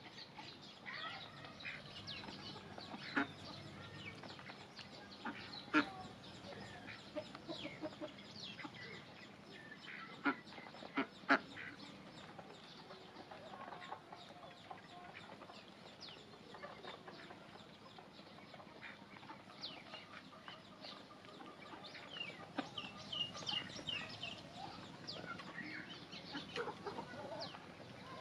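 Ducks and chickens feeding: bills dabbling and pecking in a bucket of water and on the ground, with a few sharp knocks. Clucking and short chirping calls run through it, thickest near the end.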